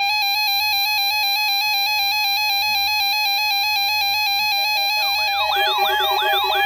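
Synthesized electronic alarm tones: a buzzy tone switching rapidly back and forth between pitches. About five seconds in, repeated quick rising siren-like whoops join it, about three a second, over a steady lower tone.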